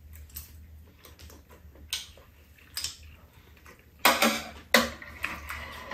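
Spoons and chopsticks clinking and scraping against bowls during a meal: scattered light clicks, then louder clatters about four and five seconds in.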